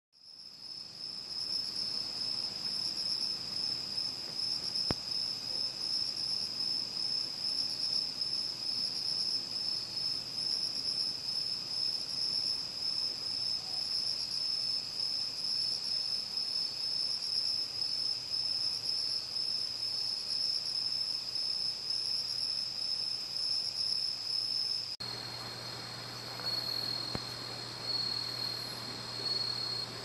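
Chorus of autumn crickets singing at night: continuous high trilling that fades in at the start. About 25 seconds in the sound changes abruptly to a slightly lower-pitched trill, joined by a low steady hum.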